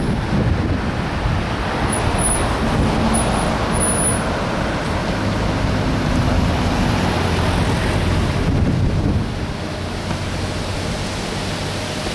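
Road traffic and gusty wind during a dust storm, a steady rushing noise, with a vehicle engine's low hum for a few seconds midway before the noise eases slightly.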